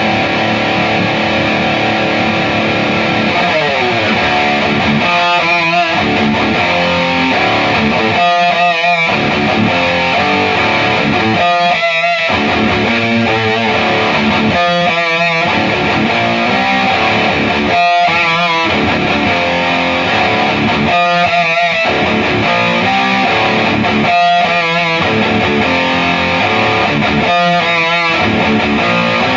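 Heavily distorted electric guitar played through a Peavey 6505MH head into a Mesa/Boogie 2x12 cabinet. A riff repeats about every three seconds, with a downward slide about four seconds in.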